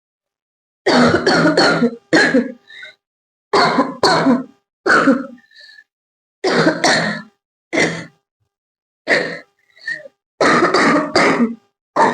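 A person coughing on purpose, forced coughs in short fits of one to three, repeated every second or so.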